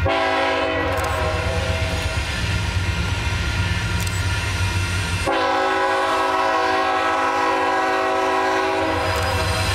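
Air horn of an approaching BNSF diesel freight locomotive sounding a chord of several notes, strong at the start, easing, then swelling to a long held blast from about five seconds in. The engine's low rumble runs underneath.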